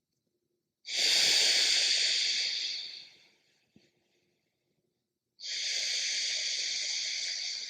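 Alternate nostril breathing: two long hissing breaths of air through one nostril. The first starts about a second in, is louder and fades out over about two seconds. The second begins about five seconds in and stays steady.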